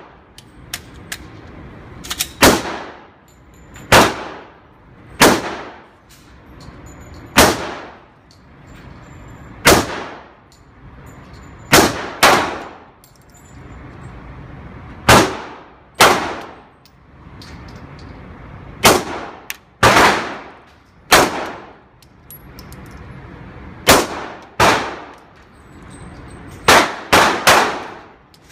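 Glock 19C 9mm pistol with a ported, compensated barrel fired shot by shot, each loud report trailing off in a ringing echo. About seventeen shots at an unhurried pace one to two seconds apart, with three in quick succession near the end.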